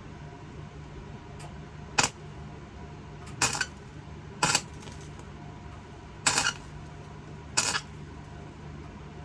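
Electric welder striking short tack welds: five brief bursts of arc crackle, each a fraction of a second, spaced a second or so apart.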